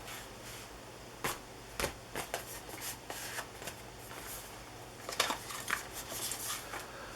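Handling noise as small aluminium-scaled pocketknives are moved about: scattered light clicks and knocks, then a busier patch of rustling and clicking a little after the middle.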